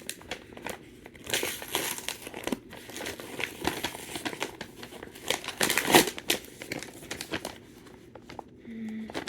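Parcel packaging crinkling and rustling as it is opened by hand: a run of irregular crackles and rips, loudest about six seconds in.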